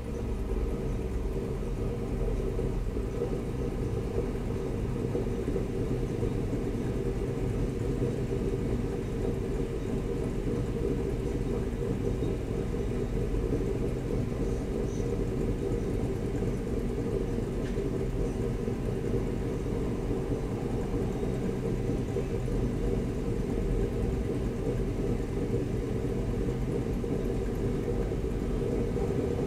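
A car's engine idling with a steady low rumble, heard from inside the stopped car's cabin.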